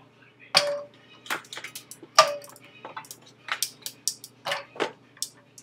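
Ice cubes dropping into a metal cooking pot: a string of irregular clinks and knocks, the two loudest, about half a second and two seconds in, leaving a short ring from the pot.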